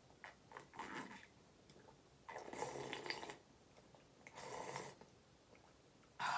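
Quiet slurping sips of ramen broth drunk straight from a tipped glass bowl: a short sip, then two longer ones of about a second each, and a brief last one as the bowl comes down.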